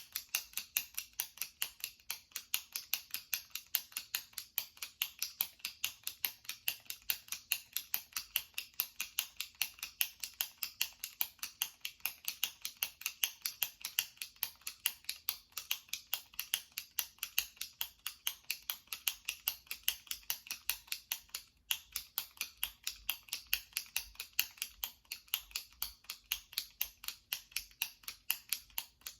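Jumbo retractable pen clicking over and over as its top button is pressed, the plunger snapping in and out at about three to four clicks a second. The clicks are sharp and high-pitched, with one brief break about three-quarters of the way through.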